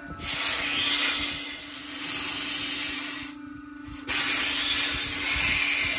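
Compressed air hissing loudly out of a freshly cut trailer air-suspension line fed from the airbags. The hiss stops for under a second about three seconds in, then starts again.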